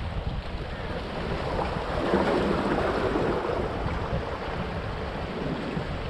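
Sea waves washing in among the large stones of a rock breakwater, one wash swelling about two seconds in and then fading. Wind rumbles on the microphone underneath.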